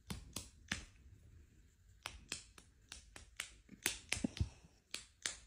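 Faint, sharp clicks coming at uneven intervals, about fifteen in all, with several bunched close together near the middle.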